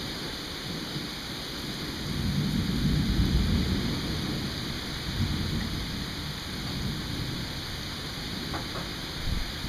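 Steady rain hissing, with a low rumble of distant rolling thunder that swells about two seconds in and fades away.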